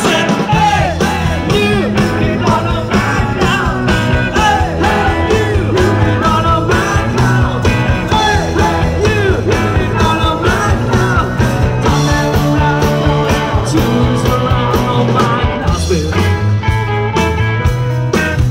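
Live rock band playing: a melody line that bends and wavers in pitch over a steady bass and a regular drum beat.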